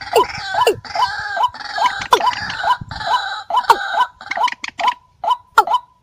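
Bird-lure recording of paddy-field rails calling: short guttural calls repeated rapidly, many dropping sharply in pitch, over harsh chattering in the first half. In the second half the calls come singly and evenly spaced, about two or three a second.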